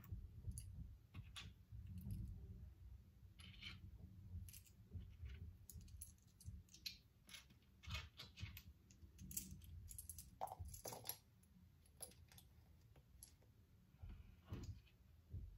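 Loose LEGO pieces clicking and rattling faintly as a hand sifts through a pile of them on a desk, in many irregular small clicks.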